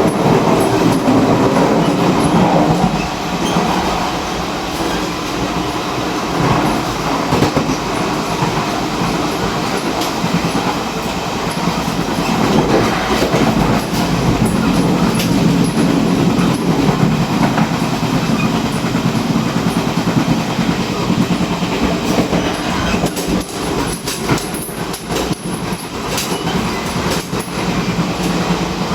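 Running noise at the gangway connection between a Chu-Kuang Express passenger car and its baggage car: a loud, steady rumble of wheels on rail with clickety-clack and scattered sharp clicks and knocks. The clicks come thicker for a few seconds near the end.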